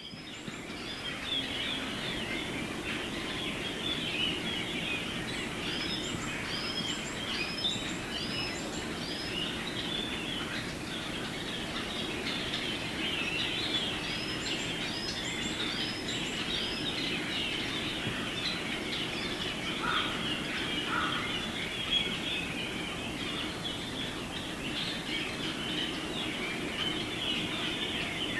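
A large flock of Japanese grosbeaks, around fifty birds, calling all at once in a continuous, busy chatter of many overlapping short calls.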